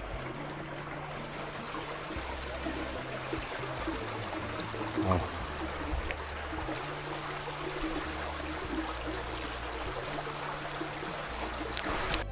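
Shallow river water flowing steadily over a small weir and stony bed, a continuous rushing trickle.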